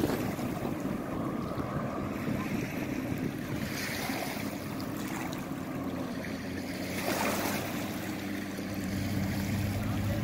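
A jet ski's engine running steadily over water, with water noise and wind on the microphone; the low engine hum grows louder near the end.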